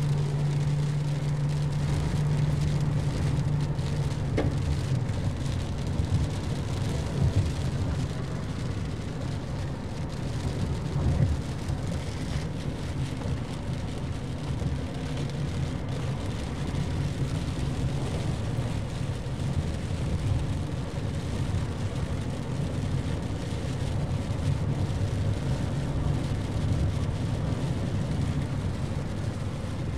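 Inside a vehicle's cabin while driving in rain: a steady low engine and tyre hum on a wet road, with rain on the windshield.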